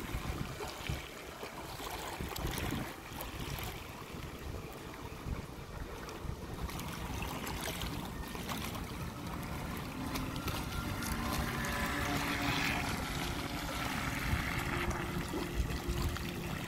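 Wind blowing across the microphone, with the lapping of small waves on choppy water.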